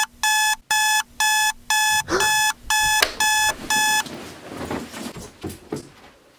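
Electronic wake-up alarm beeping in an even pattern of about two beeps a second, stopping about four seconds in. Soft rustling follows.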